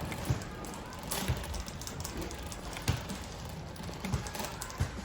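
Soft low knocks about once a second over a steady background hum.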